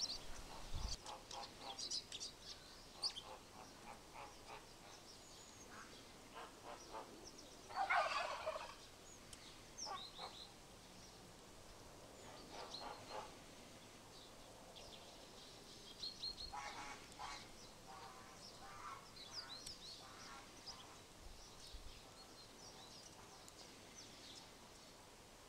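Birds calling in the open: scattered short high chirps throughout, a louder harsh rattling call about eight seconds in, and a run of stuttering rattled calls a little past the middle.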